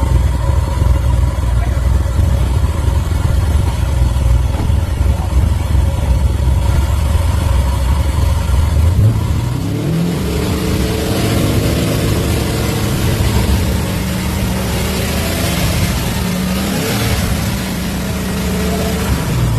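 Drift car engine running with a steady low rumble, then revving hard from about halfway, its pitch climbing and swinging up and down as the car is driven, with a rushing noise over the top.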